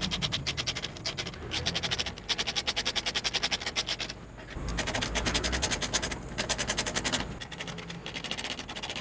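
Ratcheting screwdriver with a 5 mm hex bit clicking rapidly as it turns the windshield's bolts into stainless well nuts, with short pauses a little after four seconds and around six seconds.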